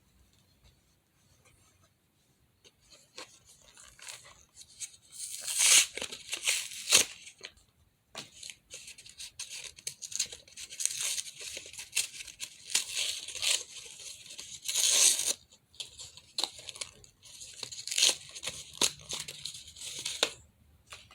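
Plastic packaging being torn and crinkled open by hand, in irregular rustling bursts that start about three seconds in, loudest around six and fifteen seconds.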